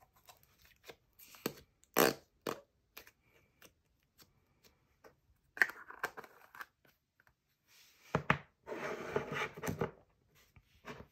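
Sticky jelly slime squished into a small plastic tub, then the tub's lid twisted shut and plastic tubs set down on a wooden tabletop: scattered squelches and plastic clicks, with a stretch of scraping about eight seconds in.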